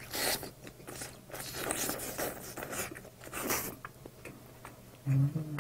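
Biting into and chewing a barbecued chicken drumstick: a string of short chewing noises, then a brief hummed 'mm' about five seconds in.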